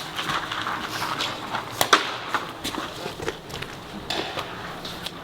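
Footsteps and rustling of people moving on foot, with irregular sharp clicks and pops, the loudest about two seconds in.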